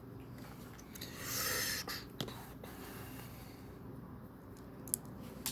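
A person's short breath out through the nose, followed by a few light clicks of small plastic Lego pieces being handled.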